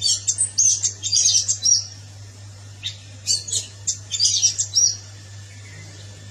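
Orange-headed thrush singing: two phrases of quick, high, twittering notes, each about two seconds long, with a pause of about a second between them, over a steady low hum.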